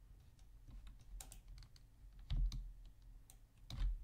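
Scattered light clicks of a computer mouse and keyboard, with two louder clicks carrying a dull thump about halfway through and near the end.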